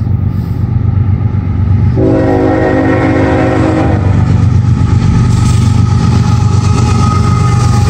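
Approaching freight train's diesel locomotives rumbling and growing louder, with a locomotive air horn sounding from about two seconds in.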